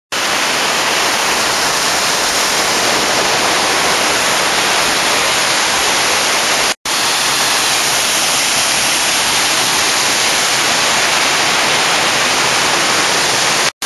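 Steady, loud rush of a waterfall, broken twice by a brief cut to silence.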